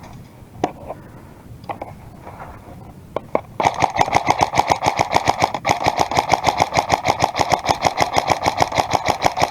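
A few separate clicks, then about three and a half seconds in an airsoft electric gun (AEG) opens up on full-auto: a long, fast, even string of shots from its motor-driven gearbox.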